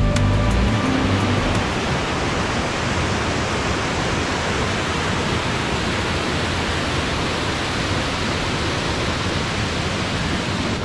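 Water rushing down a mountain waterfall and cascading creek: a steady, loud hiss of falling white water.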